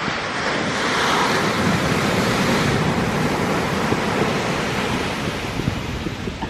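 Large ocean wave breaking on the beach: the crash swells about a second in, holds as a long rush of surf, then slowly fades. Wind buffets the microphone throughout.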